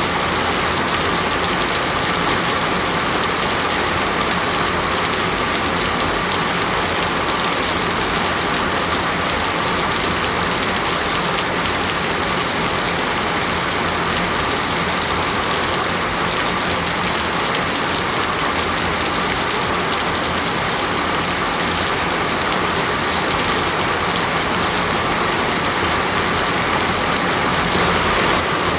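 Steady rain falling on a surface, an even, unbroken hiss of dense drops.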